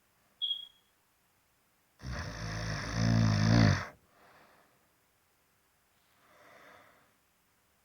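Snoring: one loud, rasping snore about two seconds in, lasting about two seconds and growing louder towards its end, followed by faint breaths. A brief high squeak sounds just after the start.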